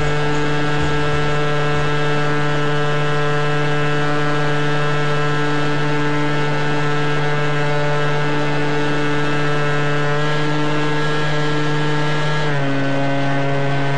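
Motor and propeller of a HobbyKing Clipped Wing Cub RC model airplane, heard close from an onboard camera as a steady drone. Its pitch drops a step near the end as the throttle comes back.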